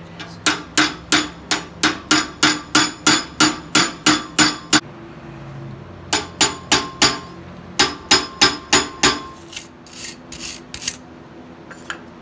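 Hand hammer striking a small punch held against red-hot Damascus steel clamped in a vise, hot-carving the eyes of a zorse head. Sharp ringing metal blows, about three a second, in three runs with short pauses, then a few lighter taps near the end.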